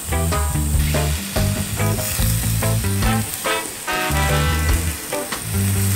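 Whole fish sizzling in oil on a portable barbecue grill, under background music with a steady bass line and melody.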